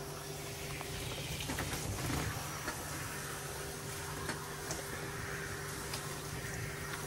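Water spraying from a hand-held shower head onto a dog's wet coat and splashing into a plastic dog bath as the shampoo is rinsed out. A steady low hum runs underneath.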